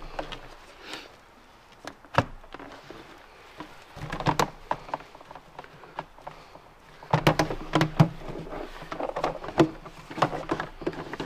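Hands working a corrugated plastic duct hose and its metal hose clamp onto an air-intake adapter: scattered clicks and knocks, with bouts of rubbing and rattling about four seconds in and again from about seven seconds on.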